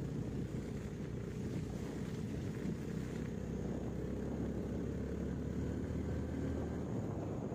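A motor vehicle's engine running steadily, with a low steady drone that grows stronger for a few seconds in the middle.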